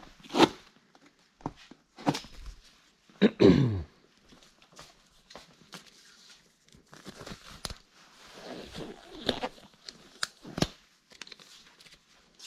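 Scattered clicks, knocks and rustles of hands working on a small leaf blower and its parts. About three seconds in there is a short, loud squeak that falls in pitch.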